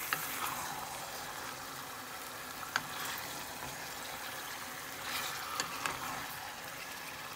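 Cubes of meat with onion, tomato and green chilli sizzling in a hot pan with a steady hiss while being stirred with a wooden spoon. A few sharp knocks of the spoon against the pan stand out, twice close together near the end.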